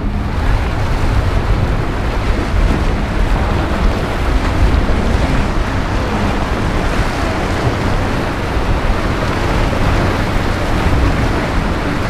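Choppy inlet water and boat wakes rushing and splashing, with wind rumbling on the microphone: a steady, even rush with no clear engine tone.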